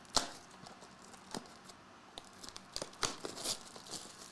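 Trading cards and foil card-pack wrappers being handled: light crinkling with scattered sharp clicks and snaps, the loudest just after the start and a cluster about three seconds in.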